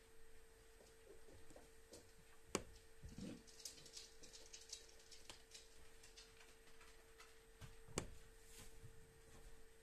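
Near silence: a faint steady hum, with two sharp clicks about five seconds apart and a patch of faint crackling between them.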